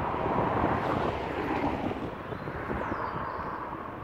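Road traffic going past, a rush of tyre and engine noise that swells and then fades, with wind buffeting the microphone.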